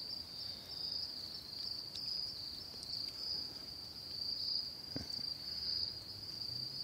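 Night insects, likely crickets, keep up a steady high-pitched chirring chorus, with one soft knock about five seconds in.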